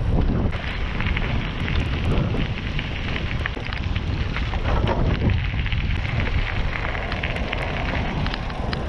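Bicycle tyres crunching and crackling over a gravel path, with wind buffeting the microphone as a steady low rumble.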